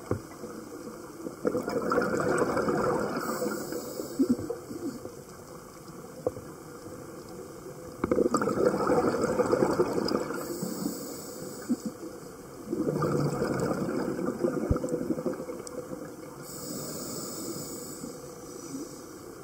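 Scuba regulator breathing heard underwater: every six seconds or so, a rush of exhaled bubbles lasting a couple of seconds, each followed by a shorter high hiss.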